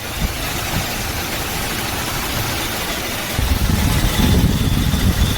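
Toyota Hilux engine idling with a rough whirring from the front drive belts, growing louder about three seconds in. The noise comes from a worn bearing in the belt tensioner pulley.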